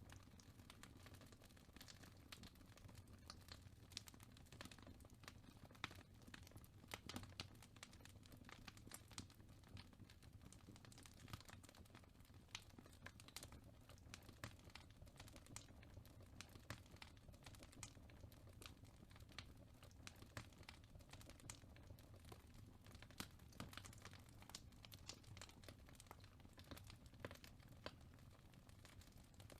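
Faint fireplace crackling: many irregular small pops and snaps over a steady low rumble.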